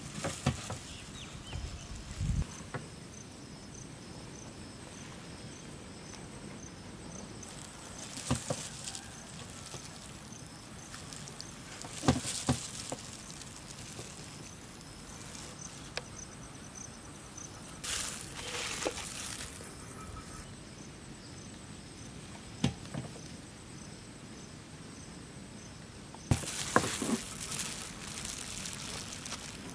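A knife trims the crusts off slices of white bread on a plastic cutting board, with scattered knocks and scrapes of the blade on the board every few seconds. Under it is a faint, steady chirping of insects.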